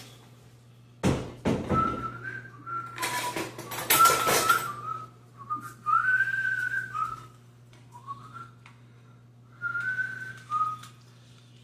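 A person whistling a wavering tune in short phrases, with sharp knocks and clatter about a second in and again around three to four seconds in, the loudest moments.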